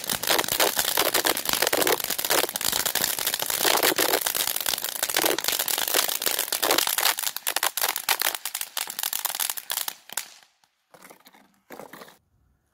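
Ground firework fountain spraying sparks with a dense, steady crackle that dies away about ten seconds in. After it, a few faint footsteps on pavement.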